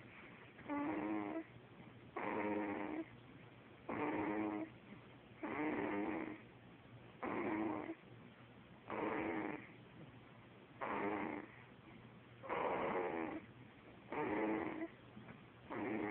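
Snoring in a steady rhythm: about ten short, buzzing snores, one every second and a half or so, with quiet breaths between.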